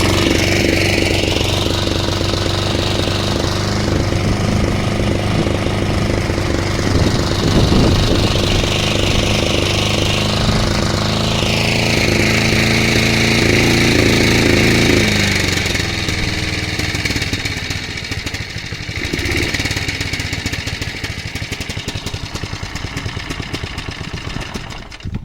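The Briggs & Stratton 3.5 hp petrol engine of a vintage Hayter Hayterette rotary mower running under load in long grass. About fifteen seconds in its speed drops and it runs unevenly and spluttery, then it stops at the very end. This is the sign of a spark plug that the owner goes on to find dirty and needing a clean.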